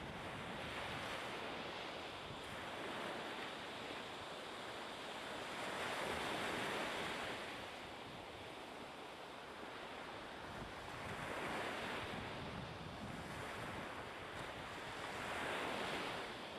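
Sea waves washing, with wind, in a steady rushing that swells and eases every four to five seconds.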